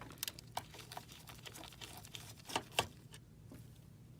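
Scattered small clicks and taps of a magnetized screwdriver working the screws out of an inkjet printer's frame, with a sharper pair about two and a half seconds in.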